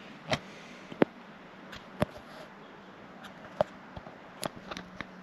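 Light, scattered clicks and taps as a small plastic thermometer probe and its cord are handled, about seven of them spread over a few seconds, the sharpest about a second in.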